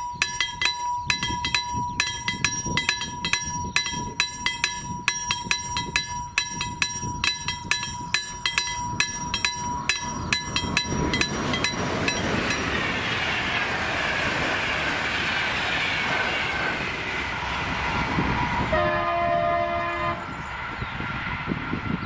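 Level-crossing warning bell striking rapidly and evenly, about three or four times a second, until about 11 s in. Then the rushing rumble of an approaching train grows louder, with one horn blast of about a second near 19 s, after which the noise falls away.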